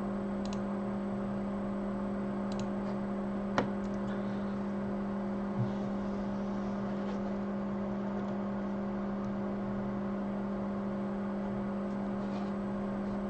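Steady low hum of running electrical equipment, one pitch with a couple of fainter tones above it, with a few faint clicks and one sharper click about three and a half seconds in.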